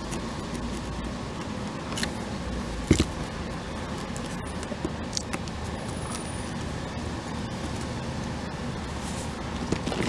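Steady outdoor background noise with a few light clicks and taps from a marker pen and tools being handled on the trailer roof, the loudest about three seconds in.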